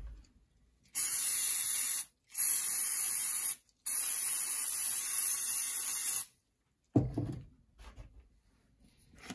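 Aerosol spray can hissing in three bursts, about one, one and a half and two seconds long, as it is sprayed into a plastic air-filter cover to clean it. A few light knocks of the cover being handled follow near the end.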